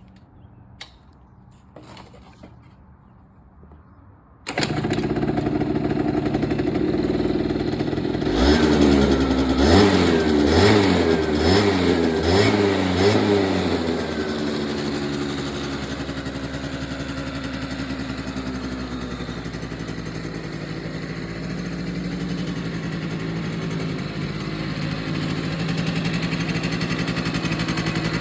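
A 1989 Yamaha Zuma scooter's two-stroke engine starts suddenly a few seconds in and is blipped through a quick series of revs. It then settles to a steady idle.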